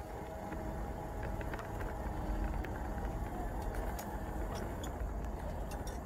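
Frontier X5 wheelchair rolling along a gravel path: a steady low rumble from the wheels, with scattered small crackles of grit and a faint steady whine.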